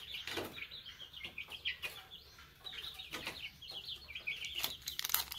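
Chickens clucking and peeping in runs of short, high calls, with a few faint clicks between them.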